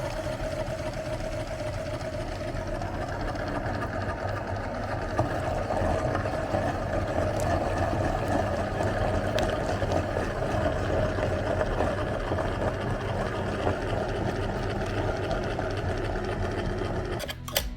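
Electric meat grinder running steadily with a continuous motor hum. It cuts off near the end.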